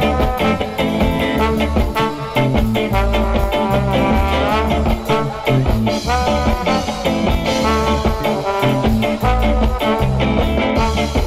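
Live band playing an instrumental passage with a steady beat.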